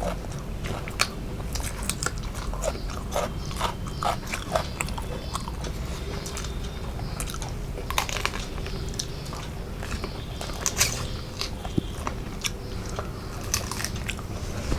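A person chewing and eating close to the microphone, with irregular small clicks and mouth smacks. A steady low hum runs underneath.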